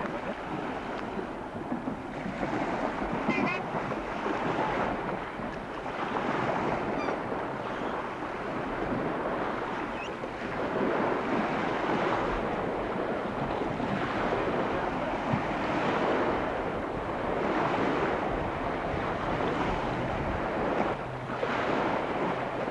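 Wind buffeting the microphone over small waves washing in the shallows, the rush swelling and easing every couple of seconds.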